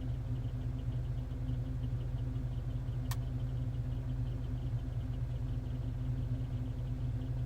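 2011 Hyundai Sonata's engine running steadily with a low hum and a fast, even ticking over it, with one sharp click about three seconds in. This is a weird noise the owner cannot identify.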